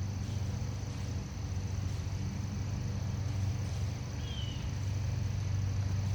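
A steady low hum, with one short high chirp about four seconds in.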